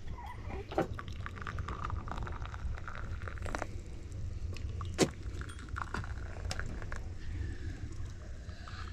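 Scattered light clinks and taps of dishes being handled, with one sharper knock about five seconds in, over a steady low rumble.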